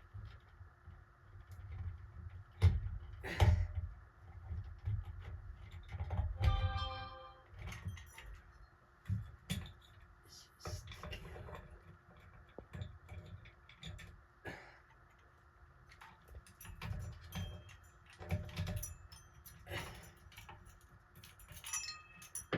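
Scattered small clicks, taps and knocks of hands and tools working on a ceiling fan's pull chain switch wiring and wire connectors. About six seconds in there is a short pitched squeak.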